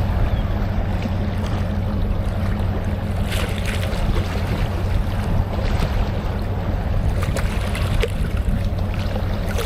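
Steady low rumble of wind and sea at the water's edge, with a few brief sharp sounds about three and a half seconds in.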